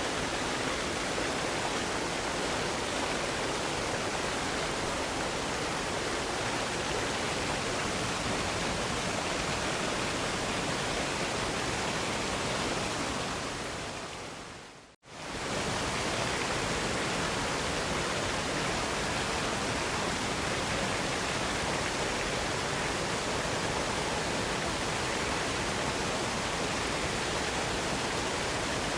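Steady rushing of a waterfall. About halfway through it fades down to brief silence and swells straight back up, a fade-out and fade-in at a seam where the recording is looped.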